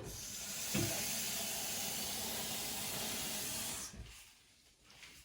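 Water running steadily into the coffee machine's plastic water tank, a hiss that stops suddenly about four seconds in. There is a low bump about a second in.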